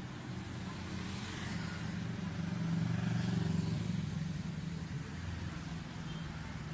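Street traffic: a motor vehicle passes close by, its engine hum growing loudest about three seconds in and then fading.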